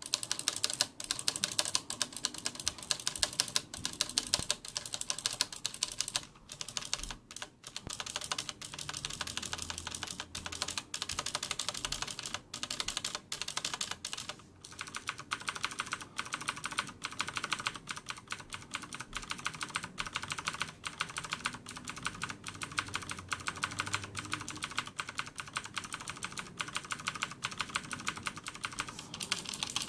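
Fast continuous typing on a Corsair K70 mechanical keyboard with Cherry MX Blue switches and no O-rings: rapid clicky keystrokes, broken by a few brief pauses.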